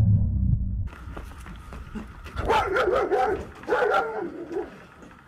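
Young German Shepherd giving two drawn-out vocal calls with a wavering pitch, about a second each, between barking and whining. A low rumble comes before them at the start.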